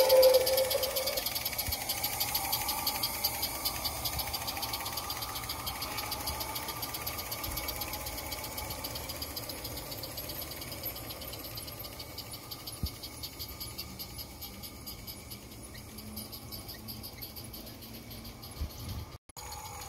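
A model train's steady whistle tone cuts off about a second in. Then the clicking and rattling of a large-scale garden train rolling over the track runs on, fading slowly as the train moves away.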